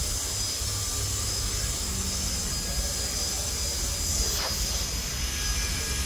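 A steady low rumble with a bright hiss over it, like continuous machine or wind noise. About four seconds in, a faint whistle falls in pitch.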